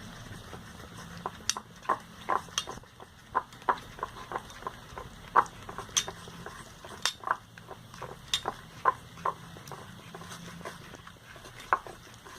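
Slime mixture of glue, food colouring and laundry detergent being stirred in a container, the stirring utensil knocking and scraping against the sides in irregular clicks as the detergent activates the glue.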